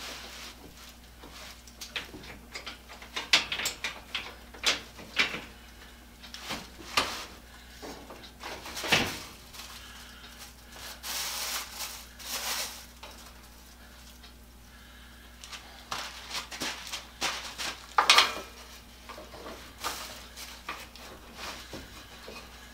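Scattered knocks, clicks and clatter of a pipe clamp being set and tightened across a workbench top, with a brief scraping noise around the middle.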